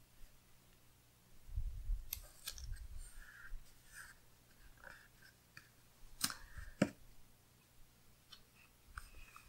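Faint paper-handling sounds: a sticker is peeled from its backing sheet and pressed down onto a paper planner page. The sounds are soft rustles, low thumps of a hand on the page, and a few sharp clicks.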